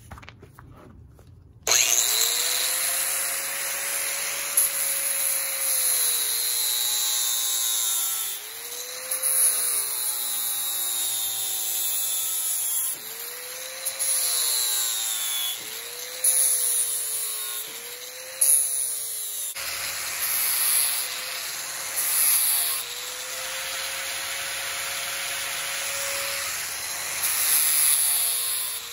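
Electric angle grinder with an abrasive disc starting up suddenly about two seconds in and sanding the face of a wood slab. Its motor whine dips in pitch each time the disc is pressed into the wood and climbs back as it eases off, over the hiss of the disc scouring the grain.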